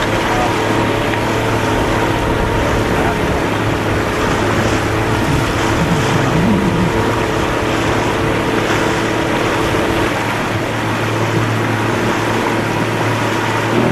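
Motorboat engine running steadily under way, with wind and water noise over it.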